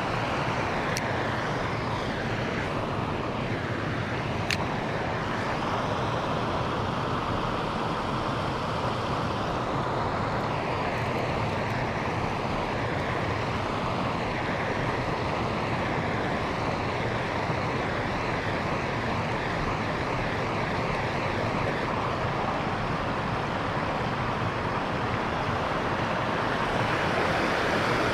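Steady rush of a mountain creek's flowing water, with two faint sharp clicks in the first few seconds.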